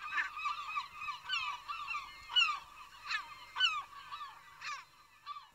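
Gulls calling in a flock: many short, overlapping cries that slide downward, several a second, thinning out near the end.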